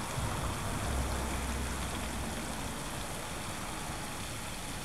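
Steady outdoor background noise, an even rushing hiss, with a low rumble swelling for a second or two about a second in.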